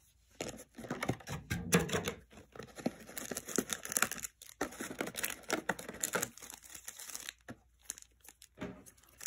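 Foil trading-card booster pack wrappers crinkling and rustling as they are handled, in irregular crackly bursts that thin out near the end.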